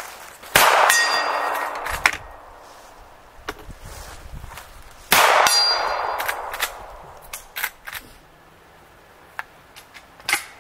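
Two rifle shots about four and a half seconds apart, each followed by the ring of a struck steel target fading out over a second or two. Lighter clicks and knocks come later on.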